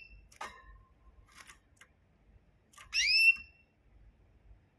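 Small pet bird giving a short rising whistled call about three seconds in, after a few faint clicks.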